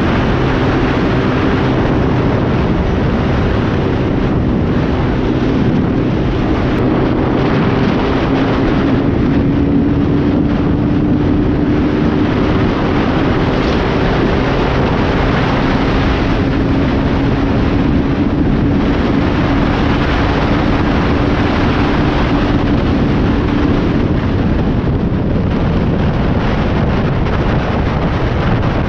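Motorcycle engine running at a steady cruising speed under heavy wind rush on the microphone; the engine note holds nearly level throughout.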